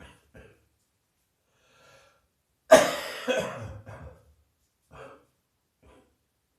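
A person with a heavy chest cold coughing: a few small coughs, then a loud double cough a bit under three seconds in that trails off, and two lighter coughs after it.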